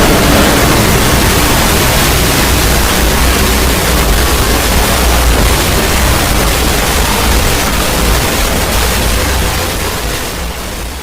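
Loud, steady hiss-like noise that fills every pitch over a heavy low rumble, fading out over the last second.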